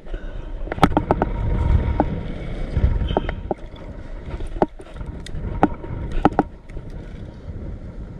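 A series of about a dozen sharp, irregular clicks and knocks from hands and pliers handling a freshly caught crappie in a plastic bucket aboard a plastic kayak, over a low rumble.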